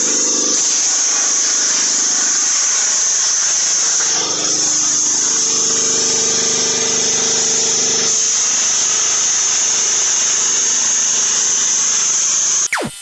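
CNC plasma cutter cutting sheet metal: a loud, steady hiss of the arc and air with a hum underneath, cutting off abruptly near the end.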